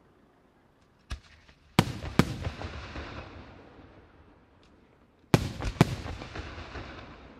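Aerial firework shells bursting: a smaller bang about a second in, then two loud bangs close together, each pair trailing off in a long fading noise, and a second pair of loud bangs about three and a half seconds later.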